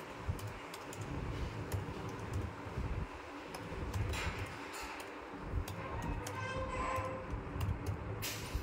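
Typing on a MacBook Air's laptop keyboard: irregular light key clicks, over a steady low rumble.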